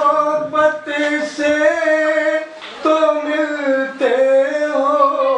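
A man singing lines of Urdu poetry unaccompanied, in the chanted tarannum style, in several long held notes.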